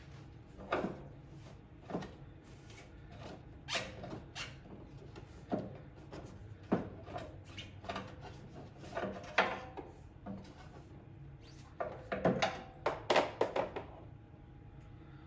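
Spin-on oil filter being worked loose on a mower engine: a string of irregular short squeaks and metal clicks as the filter and wrench turn, some squeaks briefly held in pitch.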